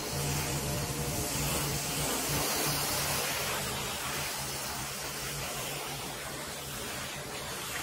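Pressure washer jet spraying water onto a car's rear window glass and roof: a steady hiss of spray, with a low steady hum underneath that fades after about three seconds.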